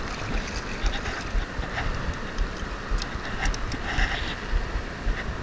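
Shallow water splashing around a just-landed striped bass as it is handled at the surface, under steady wind rumble on the microphone.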